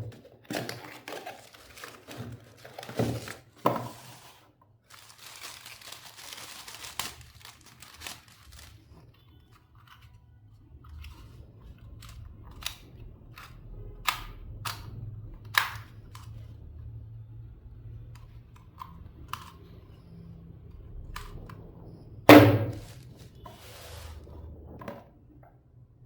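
Hands unpacking a boxed travel charger: cardboard and plastic packaging rustling, tearing and crinkling, with scattered sharp plastic clicks and knocks. The loudest is a thump near the end.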